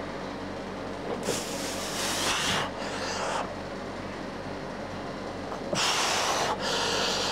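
A weightlifter breathing hard and forcefully while straining through a set of lying EZ-bar presses. There are two pairs of loud, noisy breaths, one pair about a second in and another near the end, over a steady low hum.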